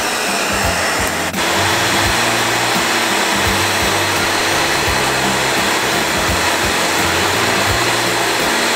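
Handheld hair dryer running steadily with a constant rush of air, blowing onto an aluminium drink can. About a second in it briefly dips, then runs on with a steady hum underneath.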